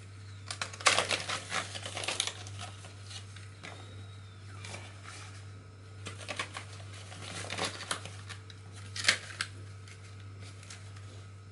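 Plastic packaging crinkling and crackling as it is handled: a poly mailer bag and a blister-card pack, in bursts about a second in, again around six to eight seconds in, and once more near nine seconds. A steady low hum runs underneath.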